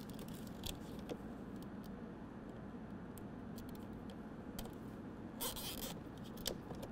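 Faint scattered clicks and rustling of a plastic wiring harness and zip ties being handled and fitted by hand, with a short scraping rasp about five and a half seconds in, over a steady low hum.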